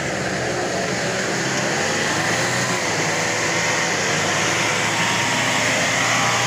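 Troller 4x4's engine running steadily as it crawls up a steep, rutted dirt track, its pitch wavering slightly, with a constant hiss over it.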